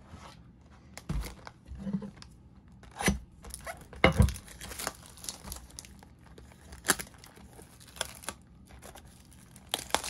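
Packaging being torn and crinkled while trading cards and boxes are handled, with scattered rustles, clicks and a few knocks, the loudest about four seconds in.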